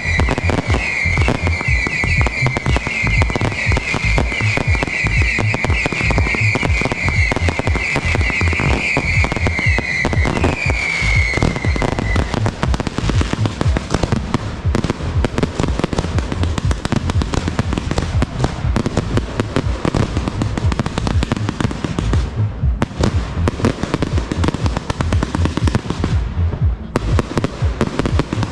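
Fireworks barrage: a dense, continuous run of rapid bangs and crackles from aerial shells and ground-fired effects. For about the first twelve seconds a string of whistling fireworks sounds over the bangs, one short whistle after another, then stops.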